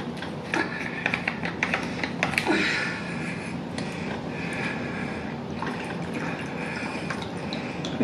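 Rum pouring from a bottle into a cup in one long, steady pour, with a few clinks in the first couple of seconds.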